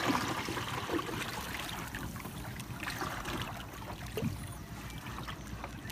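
Wooden paddle dipping and pulling through sea water beside a small outrigger canoe, with soft splashes every second or two and water swishing along the hull.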